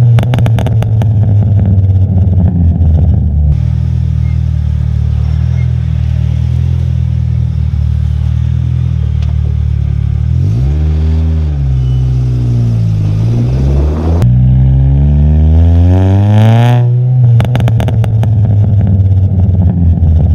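Volkswagen Jetta MK2's four-cylinder engine and exhaust driving along: a steady note, then revving up, dipping and rising again as it accelerates, louder from about two-thirds of the way through. The exhaust crackles and pops on overrun briefly at the start and again near the end.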